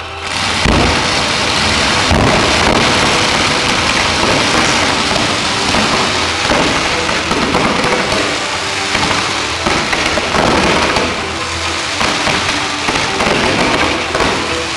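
Fireworks: ground fountains and a barrage of rising comets giving a dense, steady rush of hissing and crackling, with a few launch thumps in the first couple of seconds.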